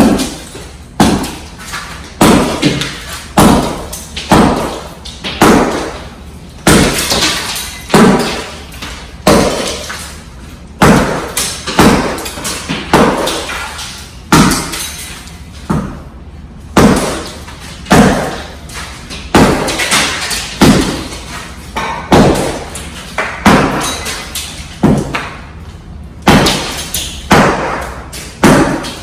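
Sledgehammer striking a hard floor about once a second, each blow with a sharp crash and scattering shards as old floor tile breaks up.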